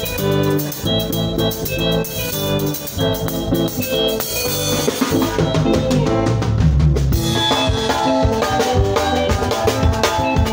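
Band playing a seben, the fast dance section of Congolese soukous, with electric guitar, bass, keyboard and drum kit. A deep bass note is held about halfway through, and the drums grow busier after it.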